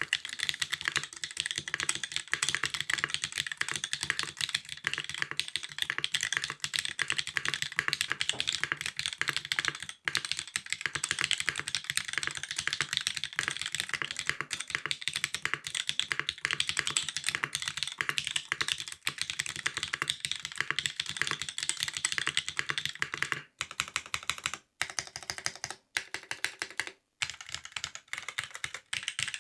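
Fast, continuous typing on a custom mechanical keyboard with linear Cherry MX Black switches, a top-mounted carbon fiber plate and DCS-profile keycaps: dense keystroke clacks, broken by a few brief pauses in the last several seconds.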